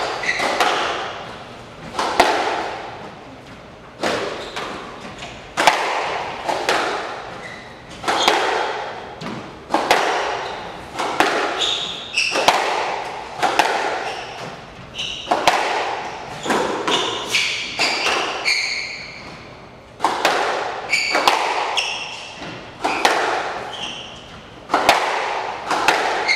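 Squash rally: sharp smacks of racket on ball and of ball against the walls, about once a second, echoing around the court. Short high squeaks of players' shoes on the wooden floor come between the hits.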